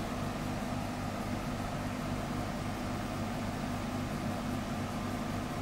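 Steady low hum with a faint hiss: room background noise.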